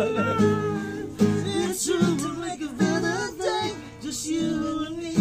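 Music: an acoustic guitar strummed with a voice singing a melody over it.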